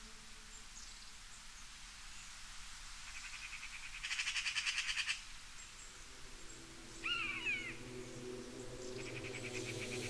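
Animal calls: a rapid pulsing trill that swells to its loudest for about a second midway, then two short calls falling in pitch about seven seconds in. Soft music comes back near the end.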